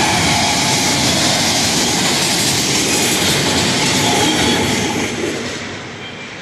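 Freight train of autorack cars rolling past, wheels running loudly on the rails; the last car goes by and the sound fades away from about five seconds in.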